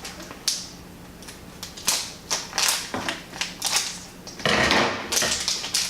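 Mystery pin packaging bag crinkling and crackling as it is handled and opened: a run of short sharp crackles, with a denser stretch of crinkling about four and a half seconds in.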